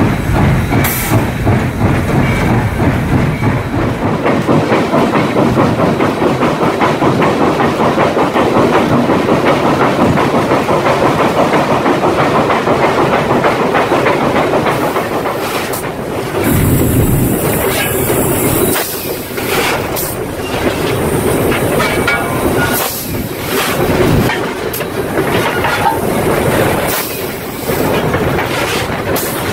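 Southern Railway 2-8-0 consolidation steam locomotive #630 running under way: rapid, even exhaust chuffs with steam hiss and rail clatter. After about halfway the rhythm gives way to a rougher running sound with irregular sharp knocks and clanks.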